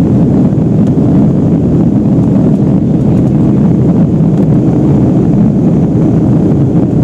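Cabin noise inside a Boeing 757-200 climbing after takeoff: its two Pratt & Whitney PW2037 engines at climb power and the rush of air past the fuselage make a loud, steady, low-pitched noise.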